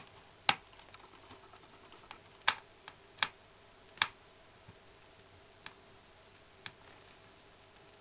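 Sharp little clicks and taps of a screwdriver and a long black screw against the metal frame of an opened Hitachi Prius Note laptop as the screw is set in place. About seven separate clicks, the loudest four in the first half, then a couple of fainter ones.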